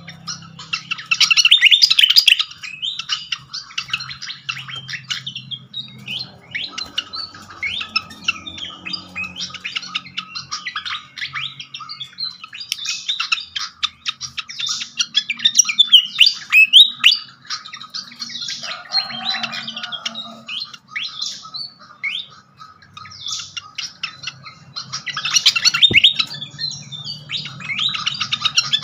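Malaysian pied fantail singing: a busy run of rapid, squeaky chirps and short whistled notes, louder in bursts near the start, in the middle and near the end.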